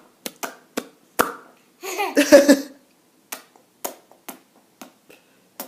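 Sharp mouth clicks and pops made one at a time with short gaps, about eight in all, with a brief voiced vocal sound about two seconds in.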